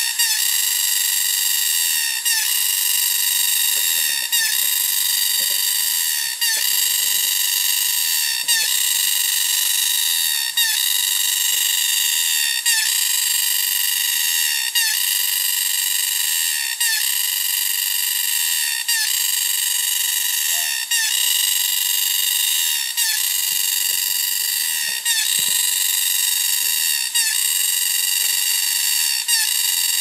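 Jade green cicadas (Dundubia vaginata) calling: an extremely loud, mechanical, high-pitched buzz that pulses with a short break and pitch slide about every two seconds.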